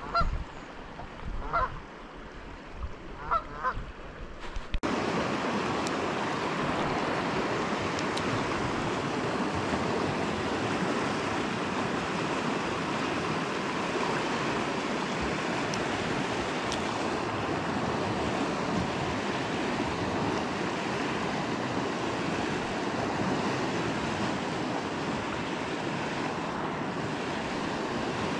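Steady rushing of a fast-flowing river over rapids. Before it comes in, about five seconds hold quieter water with a few brief honking bird calls.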